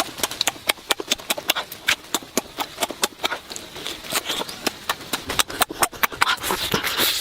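A person eating pork ribs with the mouth open, making rapid, irregular wet smacking and chewing clicks, several a second.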